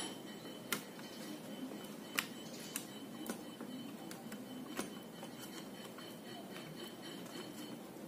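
A handful of sharp clicks and light knocks as a laptop motherboard is handled and pressed into its plastic base. The loudest come about one and two seconds in, with fewer later on.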